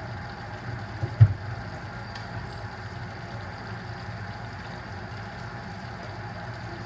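Deep fryer going with lobsters cooking in hot oil: a steady low rumble and hiss, with a single sharp knock about a second in.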